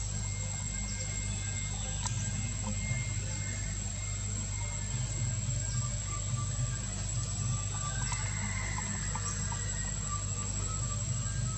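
Outdoor tree-canopy ambience: a steady, high-pitched insect drone over a constant low hum, with a few faint short chirps, one a brief rising-and-falling call about eight seconds in.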